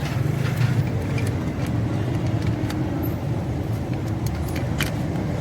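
A vehicle engine running with a steady low hum, with several sharp clicks over it.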